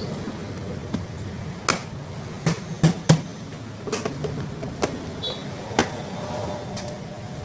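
Plastic parts of a rice cooker clicking and knocking as its top housing and lid are pressed back into place: irregular sharp clicks, the loudest a close pair about three seconds in, over a steady low rumble.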